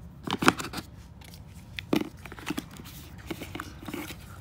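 Packaging being unwrapped by hand: irregular crinkling, crackling and tearing, loudest about half a second in and again around two seconds in.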